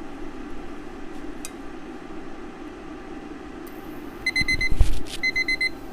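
Digital kitchen timer going off at the end of a one-minute countdown: short high beeps in quick groups of four, repeating about once a second, starting about four seconds in. Before it, a steady low hum, with a single low thump as the beeping begins.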